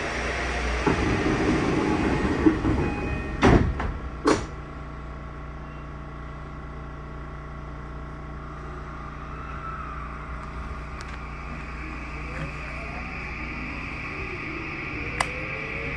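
Tokyu 2020 series electric train at a station stop: two sharp thumps about three and a half and four seconds in as the doors close. Then its Mitsubishi full-SiC MOSFET VVVF inverter drive starts the traction motors, and a whine climbs steadily in pitch over the last few seconds as the train pulls away.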